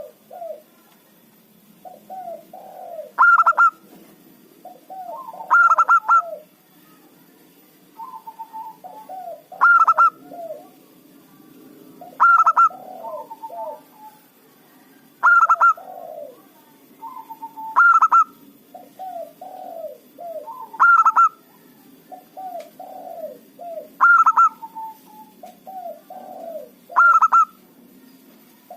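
Zebra dove (local perkutut) singing its cooing song over and over, loud and clear: each phrase is a short run of soft low coos ending in a louder, higher-pitched note, repeated about every three seconds.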